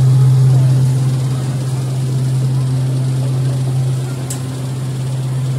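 Spinning amusement ride's drive machinery running with a loud, steady low hum as the ride turns. A brief high chirp about four seconds in.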